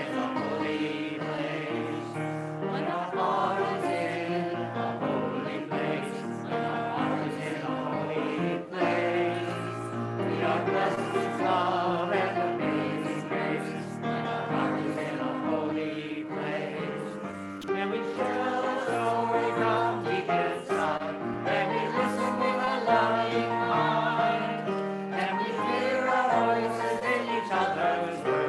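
Congregation singing a hymn together with instrumental accompaniment.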